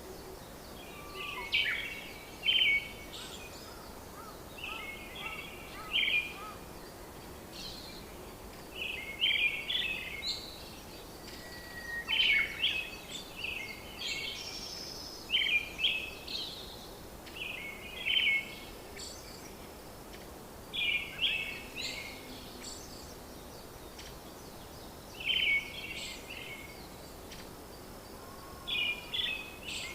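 Birdsong: short phrases of high chirps repeating every two to three seconds over a steady background hiss.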